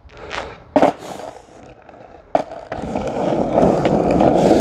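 Skateboard wheels rolling over rough, coarse asphalt, growing louder as the board comes closer. Two sharp clacks of the board come about a second in and around two and a half seconds.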